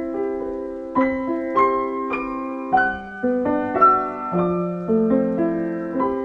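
Background piano music: soft melody and chords, notes struck and left to ring, a new note or chord coming roughly every half second to a second.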